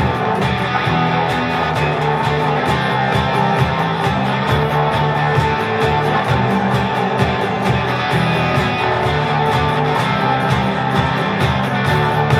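Live band playing an instrumental outro on acoustic and electric guitars, with a moving bass line under an even beat.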